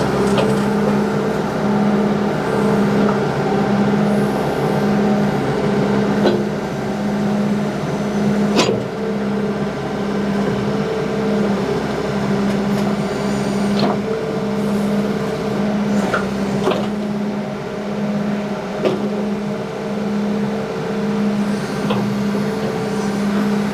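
John Deere 310G backhoe's diesel engine running while its backup buzzer pulses on and off about once a second as the machine moves in reverse. There are a few sharp metallic clanks from the machine.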